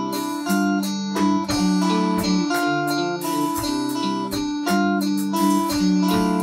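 Instrumental music: held keyboard or guitar chords changing every half second or so over a beat of sharp percussion hits.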